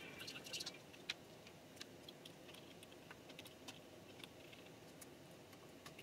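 Faint metallic clicks and ticks from hands and a small screwdriver working on the metal core of a 2013 Mac Pro during reassembly, with a brief scraping rattle in the first second as the top plate is pressed into place.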